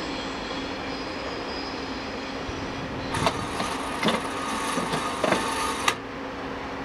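ÖBB Railjet train rolling slowly over station points: a steady hum, then about three seconds in a high wheel squeal with a few sharp clicks starts, lasting about three seconds before cutting off suddenly.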